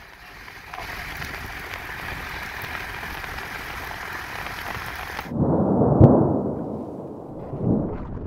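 Strong wind: a steady, even hiss for about five seconds, then a louder, deeper rumbling gust with one sharp click partway through.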